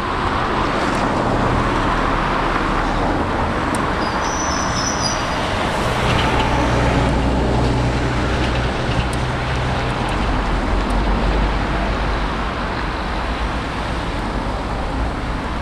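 Steady motor vehicle noise, with a low engine hum that grows stronger for a few seconds in the middle.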